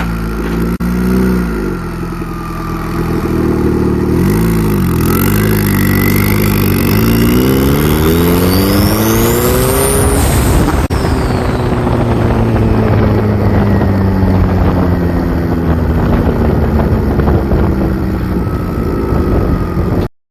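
Turbocharged PT Cruiser engine blipped a few times, then pulling hard under load with a turbo whistle that rises with the revs. After a sharp break about eleven seconds in, the engine keeps running under load as the whistle slowly falls away. The sound cuts off suddenly at the end.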